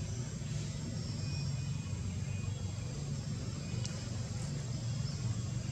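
A steady low rumble, with a few faint high chirps early on and a single short click about four seconds in.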